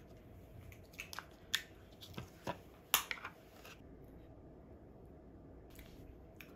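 Plastic lids being pulled off and inner seals peeled from small ice cream cups: a run of sharp clicks and crinkles over a couple of seconds, the loudest about three seconds in, then only faint handling.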